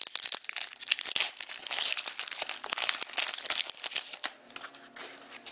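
The wrapper of a 2013-14 Panini Crown Royale hockey card pack being torn open and crinkled: dense crackling with many sharp crackles for about four seconds, then softer rustling near the end.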